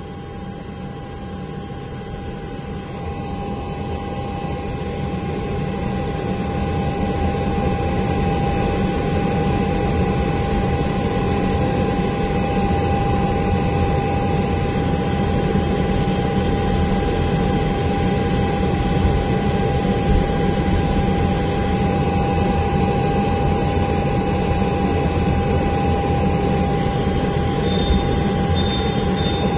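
Ilyushin Il-76 heard from inside the cockpit on its landing roll: the drone of its four turbofan engines with steady whining tones over a rolling rumble. It grows louder over the first several seconds and then holds steady. A few short high beeps start near the end.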